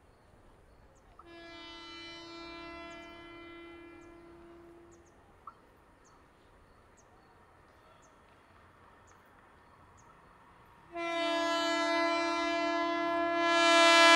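Indian Railways locomotive horn sounding one steady pitch: a fainter blast of about four seconds starting a second in, then a long, loud blast from about eleven seconds in that keeps growing louder as the train approaches.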